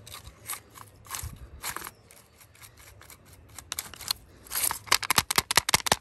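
A brush scrubbing caked dirt off a chainsaw. It starts with a few separate strokes, then about four and a half seconds in breaks into fast back-and-forth scrubbing, several strokes a second, the loudest part.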